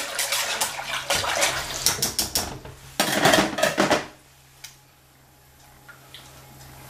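Spoon scraping and clinking against a cooking pot while stirring thick tomato sauce: a run of clicks and scrapes for about four seconds, then it stops, leaving only a low steady hum.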